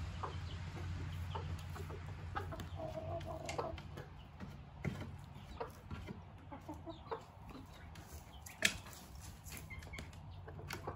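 Silkie chickens clucking softly in scattered short calls over a low steady hum, with one longer held call about three seconds in and a single sharp knock late on.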